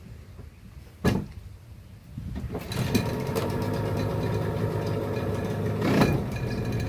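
A sharp knock about a second in, then a boat's outboard motor starts about two seconds in and runs steadily at low revs.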